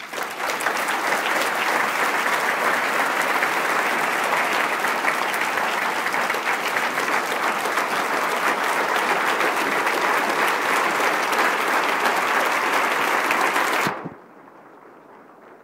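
Audience applauding loudly and steadily, a dense clatter of many hands clapping, cutting off suddenly near the end.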